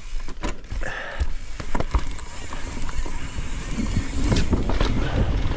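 Mountain bike rolling down a rocky trail: tyres running over rock and roots, with repeated sharp knocks and rattles from the bike over a steady low rumble.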